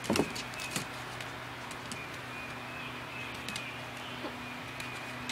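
Faint bird calls recurring over a steady low hum, with a few light taps. A brief falling cry right at the start.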